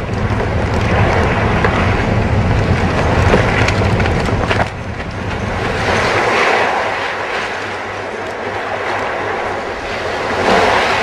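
Steady wash of surf and wind. A deep rumble under it drops away suddenly about halfway through.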